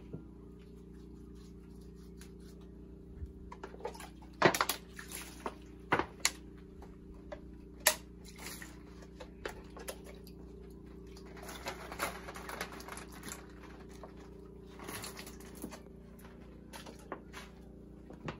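Water sloshing and dripping in a plastic bucket as a bathing sponge is dipped and wrung out, with scattered sharp knocks and splashes over a steady low hum.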